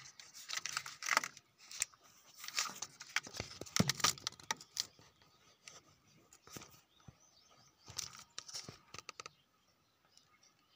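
Irregular rustling, rubbing and clicking of handling close to the microphone, in two busy stretches, dying away about nine seconds in.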